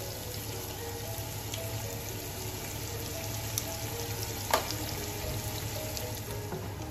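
Sliced onions sizzling steadily in hot oil in a pot, deep-frying until they turn brown, under soft background music.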